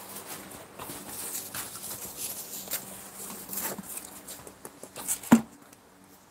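Scattered scrapes and taps from tile-laying tools working cement mortar, with one sharp knock about five seconds in.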